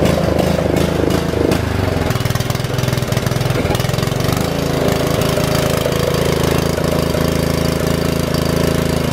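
Craftsman R110 riding lawn mower's engine running steadily, just after being started.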